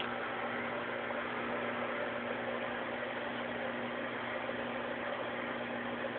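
Aquarium pump running: a steady, unchanging hum over an even hiss.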